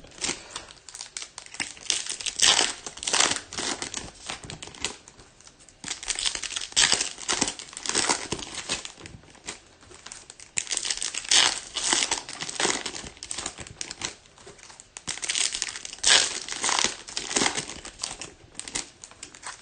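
Foil trading-card pack wrappers crinkling and being torn open by hand. It comes in bursts of a second or two with short quieter gaps between them.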